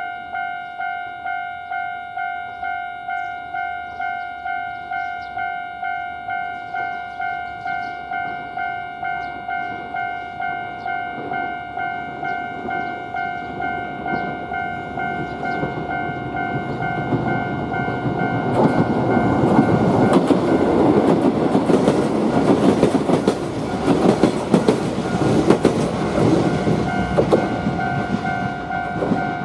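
Japanese railroad crossing's electronic alarm bell ringing its repeating "kan-kan" ding, about one and a half dings a second. A Yoro Railway electric train approaches and passes through the crossing, its rumble and wheel clatter building from about twelve seconds in and loudest in the last third, partly covering the bell.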